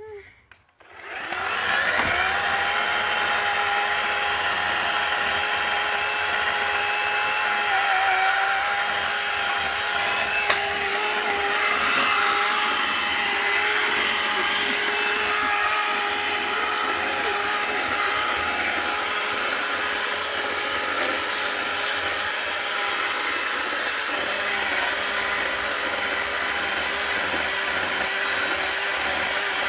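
Chainsaw engine revving up about two seconds in, then running steadily at high speed.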